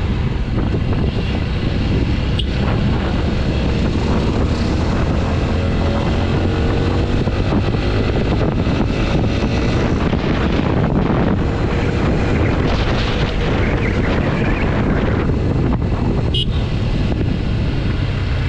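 Single-cylinder TVS Apache RTR 160 4V motorcycle engine running at road speed, heavy wind noise on the microphone. The engine note rises and falls slowly as the bike speeds up and eases off.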